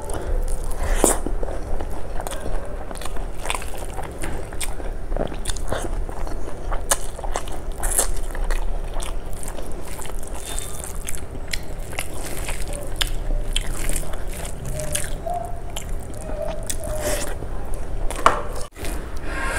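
Close-miked eating by hand: fingers squishing and mixing rice soaked in kadhi, and wet chewing and lip smacks on mouthfuls of it, with many short sharp clicks.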